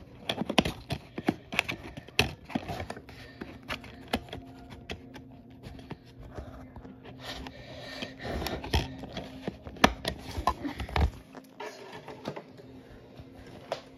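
Handling noise: irregular clicks and knocks of objects being moved close to the microphone, over a faint steady low hum.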